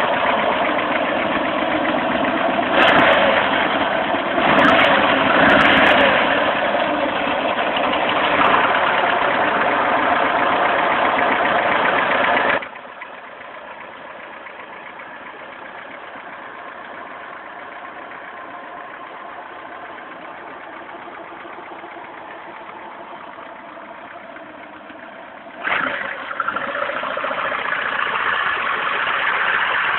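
Lada VAZ-2109's four-cylinder petrol engine running with a knock in the engine. It swells briefly louder a few seconds in, drops suddenly to a steady, quieter run about halfway through, and comes back loud near the end.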